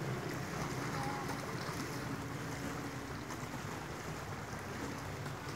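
Steady seaside ambience: wind buffeting the microphone over the wash of small waves against a rocky shore.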